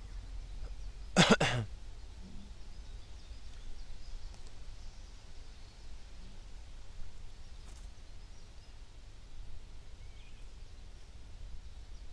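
A person coughs once, a short burst about a second in, over a steady low rumble.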